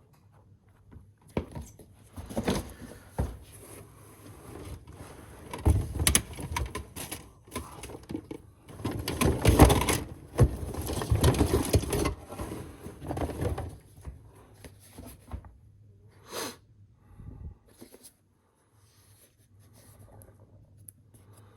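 Hands handling small plastic items and packaging: irregular clicks, rattles and rustles, busiest and loudest from about nine to thirteen seconds in, then dropping away.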